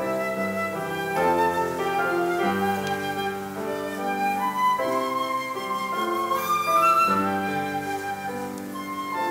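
Instrumental church music: a flute-like melody of held notes over piano or keyboard accompaniment.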